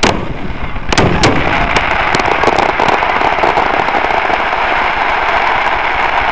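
Aerial fireworks shells bursting in a finale: a loud bang at the start and another about a second in, then a run of sharp cracks, giving way to a dense, steady wash of sound.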